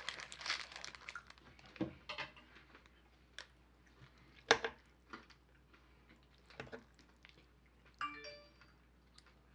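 Scattered light clicks and clinks of dishes and utensils being handled at a table, with crinkling at the start, one sharper click about halfway through, and a short ringing clink about eight seconds in.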